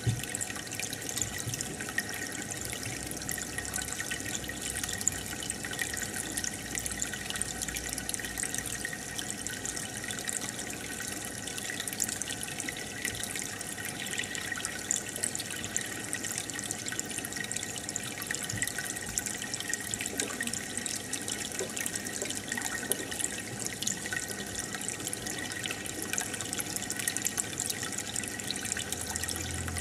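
Steady bubbling and splashing of aquarium water from the tank's aerator and filter.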